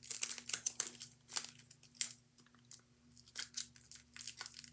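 Sticky tape being pulled off the roll and wrapped around a crumpled paper ball, crinkling and tearing in quick irregular bursts.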